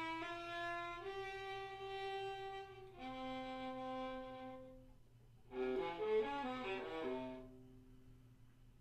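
Unaccompanied viola playing slow, sustained bowed notes. About halfway through it swells into a louder passage of several notes sounding at once, then settles onto a low held note that fades away.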